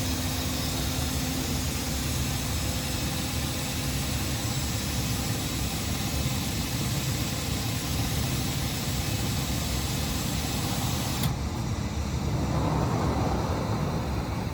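Steady machine running noise, with a faint steady hum early on; the sound changes abruptly about eleven seconds in.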